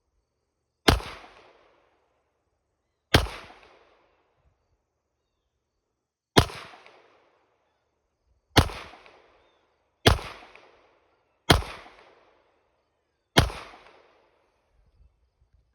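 Seven 9mm pistol shots from a Glock 17 Gen 2, fired singly at a slow, uneven pace, one to three seconds apart. Each shot is followed by about a second of echoing decay.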